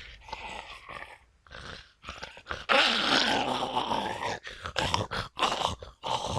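Zombie vocal sound effect: a rough, raspy voice in a string of short bursts, with one long, loud outburst lasting over a second about three seconds in, then more short bursts.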